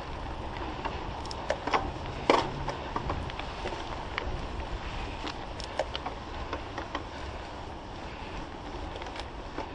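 Mountain bike riding along a dirt trail: a steady rush of tyre and wind noise, broken by short sharp clicks and rattles from the bike over bumps, the loudest a knock about two seconds in.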